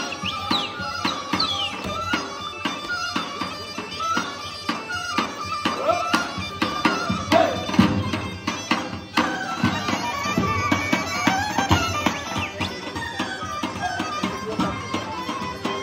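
Bulgarian folk dance music: an ornamented wind-instrument melody over the steady beat of a tapan, the large double-headed drum.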